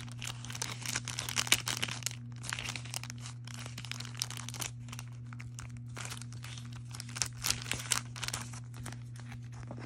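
Clear plastic photo card sleeve crinkling as washi tape is peeled off it, in irregular crackles and short rips, busiest in the first couple of seconds and again about seven to eight seconds in.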